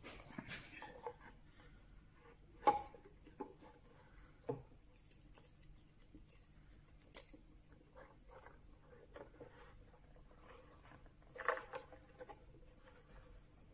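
Small metal screw clamps being fitted and tightened down onto wooden pads: scattered light clicks and knocks of metal on wood, the sharpest about three seconds in, with a small cluster near the end.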